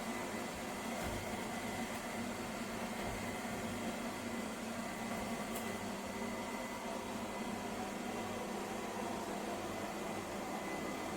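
Lefant M1 robot vacuum running: a steady whirring hum with a faint thin high whine over it.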